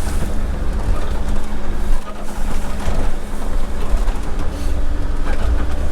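Motor yacht underway: a steady engine drone with a heavy, uneven low rumble and a wash of water and wind noise.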